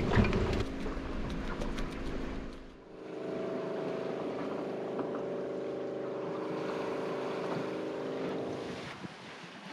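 A metal spoon scraping and clinking in a ceramic bowl. About three seconds in it gives way to a steady mechanical hum of several even tones inside a sailboat's cabin, over a soft wash of water and wind, ending shortly before the close.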